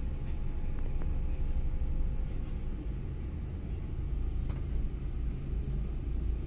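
Passenger bus's engine and drivetrain rumbling, heard inside the cabin while the bus moves slowly in traffic: a steady low drone with a single small click about four and a half seconds in.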